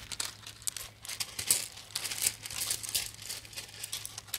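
Gravel crunching and crackling irregularly under a Tibetan mastiff puppy's paws as it moves about.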